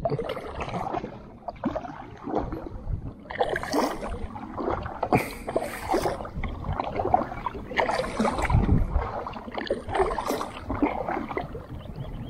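Double-bladed kayak paddle dipping into calm water, stroke after stroke, with water splashing and dripping off the blades.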